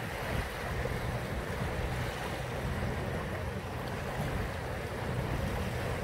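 Small wind-driven waves washing onto a sandy beach in a steady, rushing wash, with a low rumble of wind on the microphone underneath.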